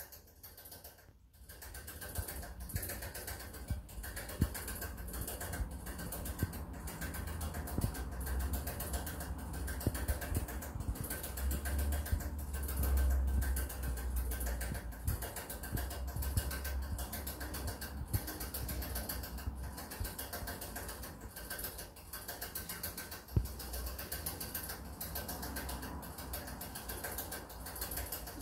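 Rabbit drinking from a hanging water bottle: a steady run of small clicks and rattles from the metal drinking spout as it licks. A low rumble underneath swells in the middle.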